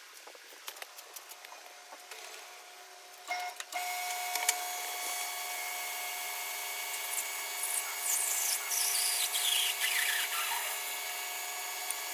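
Metal lathe starting up about three and a half seconds in and running steadily while facing the sawn end of a metal shaft, after a few small handling clicks. Near the end the cut adds a high squeal that falls in pitch.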